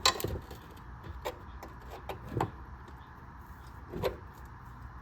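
Tools knocking and clicking on metal as the brake line's retaining tab is worked loose: a handful of short sharp knocks, the loudest right at the start and another about four seconds in, over a steady low hum.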